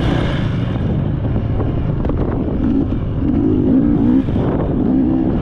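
Off-road racing engine running hard, its pitch wavering up and down with the throttle.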